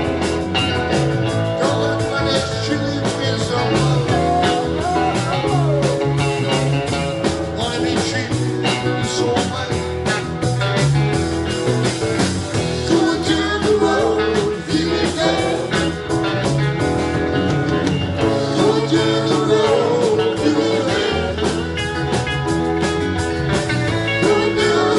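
A live rock band plays with electric guitars, electric bass, drums and keyboard, and there is singing at times.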